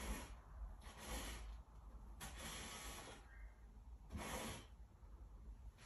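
Soft scraping swishes of material being stirred by hand in a bucket, four or five strokes spaced about a second apart.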